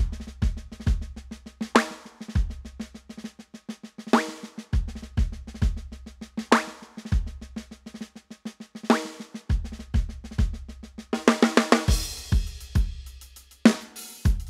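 Background music driven by a drum kit: deep kick drum, a snare hit about every two and a half seconds and rapid steady ticking. A denser drum fill builds about eleven seconds in and ends in a cymbal crash.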